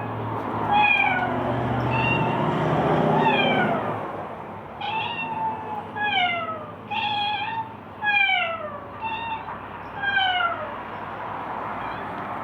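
Two domestic cats trading meows back and forth, about nine calls roughly a second apart, most falling in pitch.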